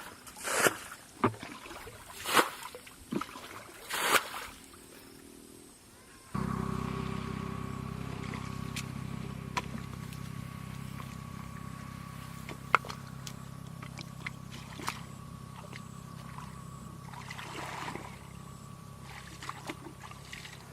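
A few loud splashes about a second apart, then, about six seconds in, a small engine cuts in and runs at a steady low hum.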